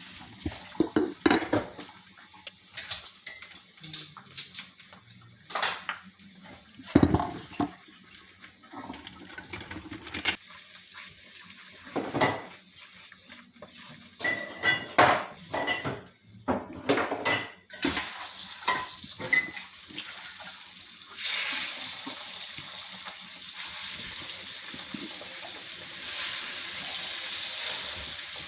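Kitchen utensils and dishes clinking and knocking in many separate strikes, a spoon against pots and bowls. About three-quarters of the way in, a steady sizzle of frying starts and carries on.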